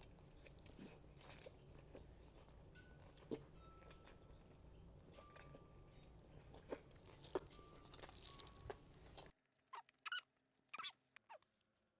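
Near silence with faint, scattered mouth clicks and chewing sounds from someone eating, over a low background hum that drops out about nine seconds in.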